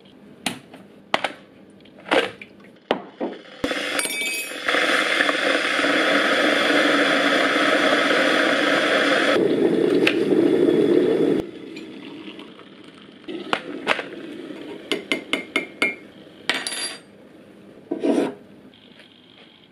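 Stainless steel electric kettle clicked onto its base with a few knocks, then heating water with a loud steady rushing for about seven seconds that stops suddenly. A teaspoon then clinks quickly against a ceramic coffee mug as the coffee is stirred, ending with a knock.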